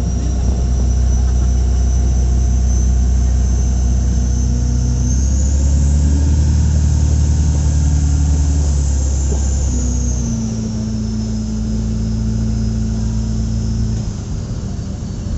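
Tow boat's engine running under way, pulling a parasail. It speeds up about five seconds in and eases back about five seconds later, with a high whine that rises and falls along with it.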